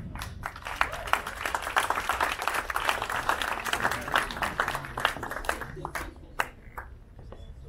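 Audience applauding, a dense patter of handclaps that thins out and stops about six and a half seconds in.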